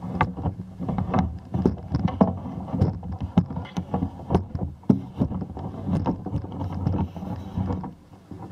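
Handling noise from a camera being moved about on a pole: irregular knocks and rubbing over a low rumble.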